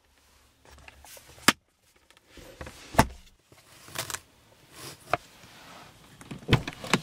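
Scattered plastic clicks, taps and light knocks from hands handling a 2012 Mercedes-Benz E63 AMG's rear-seat interior trim: the armrest storage lid, the seatback pocket and the rear door's inner handle, with soft rustling between them. The loudest click comes near the end, as the rear door handle is pulled.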